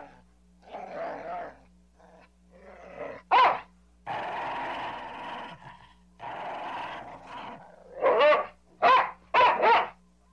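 An aggressive dog snarling and growling in long stretches, broken by sharp barks: one a little past three seconds in, then four in quick succession near the end.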